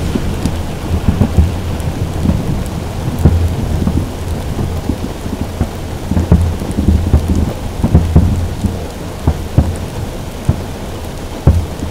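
Heavy rain drumming on a car roof, a dense patter of sharp ticks, with repeated low booms and rumbles underneath that swell and fade every second or two.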